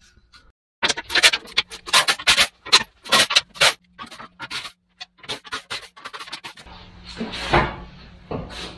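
Steel clanking and rattling as the bumper kit's mounting bolts are loosened and the unwelded steel bumper is shifted on its mounts. A rapid run of loud metal clanks comes first, then scattered clicks, then a heavier knock and scrape near the end.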